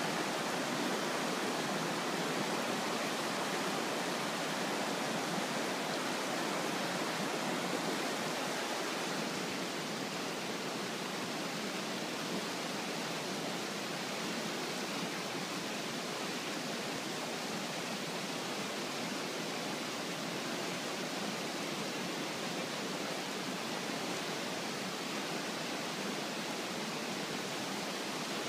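Fast river rapids rushing steadily, a constant wash of moving water that eases slightly about nine seconds in.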